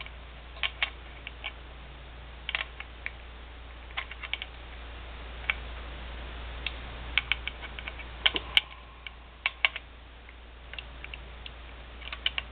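Irregular metallic clicks and clacks of a 1955 High Standard Model HD Military .22 LR pistol's parts being handled and fitted back together, in small clusters with the loudest a little past the middle, over a steady low hum.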